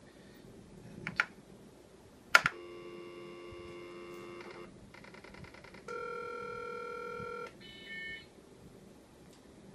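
A phone line taken off-hook by the Micromodem IIe modem: a sharp click, then a steady dial tone for about two seconds, followed by two touch-tone digits, the first held about a second and a half, the second short, as the modem dials out.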